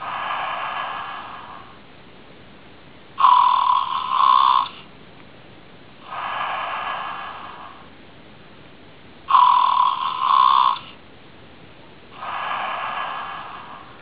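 Snoring plush teddy bear toy snoring in a steady cycle: a loud snore in two quick pulls on the in-breath, then a softer, longer breathy out-breath, repeating about every six seconds.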